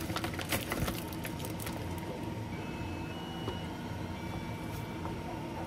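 Plastic crab-stick wrapper crinkling and crackling as it is pulled open, over a steady low hum; the crackling stops after about a second and a half, leaving the hum with a few small clicks.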